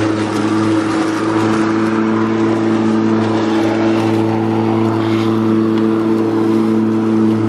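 Makita DLM382 battery-powered lawn mower running at a steady speed as it is pushed over grass, its motor and blade giving an even, unchanging hum over a hiss.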